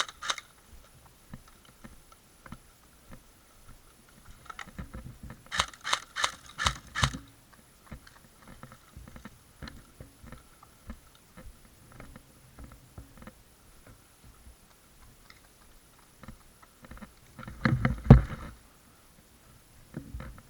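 Handling and movement noise on a body-worn camera: scattered rustling, a quick run of about six sharp clicks around six seconds in, and a louder cluster of knocks ending in a heavy thump near the end.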